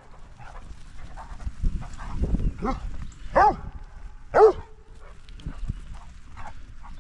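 A dog barking three times in short sharp barks, about halfway through.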